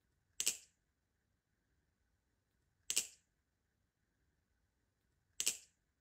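Balisong trainer (Squid Industries Krake Raken) clacking as its handles snap together, a quick double click repeated three times at an even pace, about two and a half seconds apart, once per pass of the looped trick.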